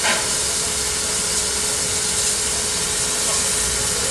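Steady steam hiss from a standing Krauss-built 1913 Bavarian Pt 2/3 steam tank locomotive, with a steady tone running through it and no exhaust beats. A short knock sounds right at the start.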